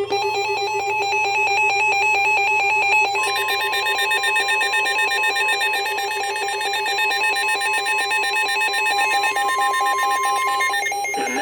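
Emergency Alert System alert tones for a severe thunderstorm warning: a rapidly warbling electronic alarm, joined about three seconds in by a steady single tone that cuts off near the end.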